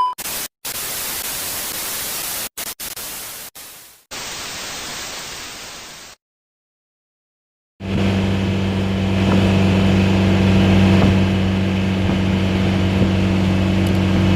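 Static-like white noise that cuts in and out abruptly for about six seconds, then a short silence. From about eight seconds in, a steady car drone with a low hum takes over.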